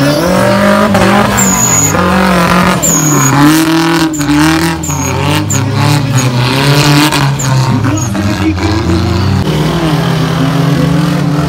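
Off-road 4x4 race car engines revving hard, the pitch rising and falling again and again as the drivers work the throttle.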